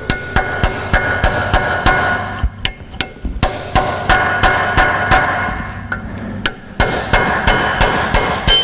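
Hammer blows on a small chisel driven between the Land Rover Defender's rear half shaft flange and the hub to break the seal. The blows come quick and steady, about three a second, each with a metallic ring, and pause twice for a moment.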